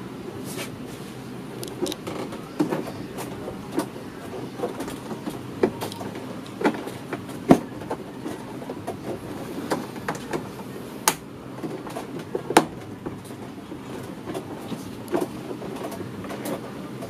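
Hands fitting a rubber cover and plastic trim inside a Honda Airblade 150 scooter's under-seat compartment, making irregular sharp clicks and knocks. A few louder snaps come near the middle and past it, over a steady low background noise.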